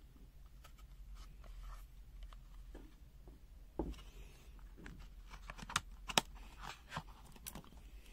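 Faint handling noise and small plastic clicks from an ANENG AN-101 card-size multimeter as its test-lead plugs are pushed into the jacks and the meter is handled and set down, with a few sharper clicks in the second half.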